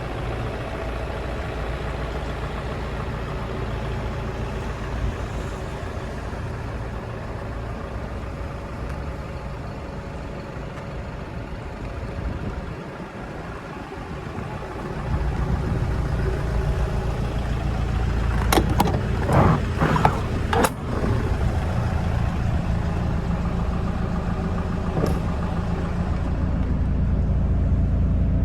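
Renault Mascott 150.65's 3.0-litre diesel engine idling steadily, louder from about halfway through. Several sharp knocks come about two-thirds of the way in, and one more near the end.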